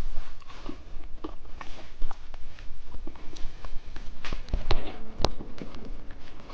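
A close-miked run of irregular clicks, snaps and crackles from candy snacks and their packaging being handled, with the sharpest snaps a little past the middle.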